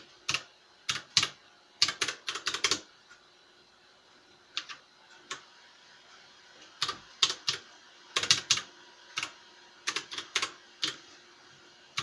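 Keys of an MK Disco mechanical tenkeyless keyboard with KBTalking switches being pressed in irregular bursts of single strokes and quick runs, with a short pause about three seconds in.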